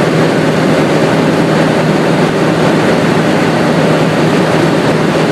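Piston engine and propeller of a light plane running steadily in cruise, heard from inside the cabin: a constant low hum under a heavy rush of engine and wind noise.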